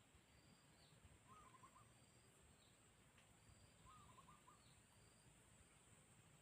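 Near silence: faint outdoor ambience with distant birds calling, short warbled calls about a second in and again about four seconds in, and thin high notes repeating every couple of seconds.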